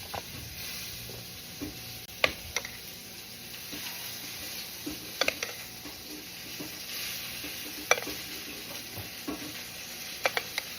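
Food sizzling steadily in a frying pan, with a few sharp clicks and taps of a utensil against the pan.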